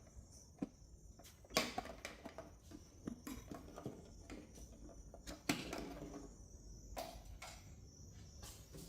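Faint plastic clicks and handling noise as bulb sockets are twisted out of a tail light housing, with several separate clicks spread through.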